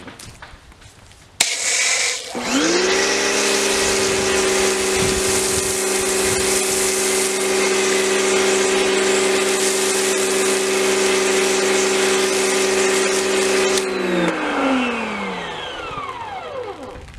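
Karcher K1700 Cube electric pressure washer spraying through a foam cannon. A sudden hiss of spray starts, then about a second later the pump motor spins up with a rising whine and runs at a steady pitch. Near the end the spray cuts off and the motor winds down with a falling whine.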